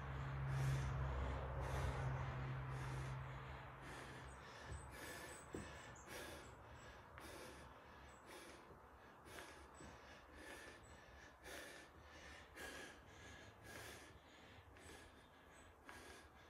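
A man's short, rhythmic breaths, about two a second, forced out with the effort of flutter kicks. A steady low hum stops about four seconds in.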